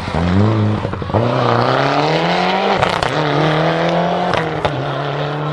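Mitsubishi Lancer Evolution rally car's turbocharged four-cylinder engine under hard acceleration: the pitch climbs, drops at a gear change about three seconds in, holds, and drops again near the end, with a few sharp pops around the shifts.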